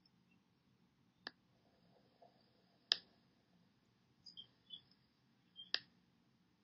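Three sharp, isolated clicks spaced a second or more apart, the middle one loudest, with a few faint short high ticks between the second and third, over a quiet background.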